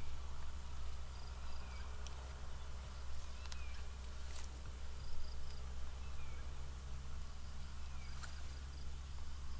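Outdoor ambience of small creatures chirping: short falling chirps repeat about once a second over a steady low hum, with a few brief high stuttering calls and a few faint clicks.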